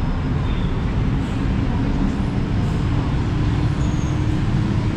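Steady city road traffic: the continuous rumble of engines and tyres from the roads around the skywalk, with a faint engine hum.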